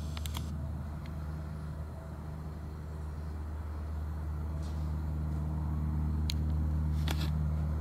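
A steady low mechanical hum that swells somewhat over the last few seconds, with a few short sharp clicks, about three of them.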